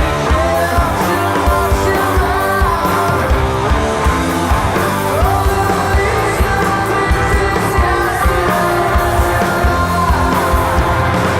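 Stoner/psychedelic rock band playing live, loud and steady: electric guitars, bass and drums, with a voice singing over them.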